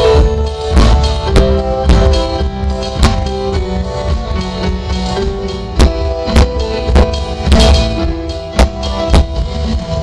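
Live rock band playing through a stage PA: electric guitar, bass guitar, keyboard and an electronic drum kit keeping a steady beat of about two hits a second.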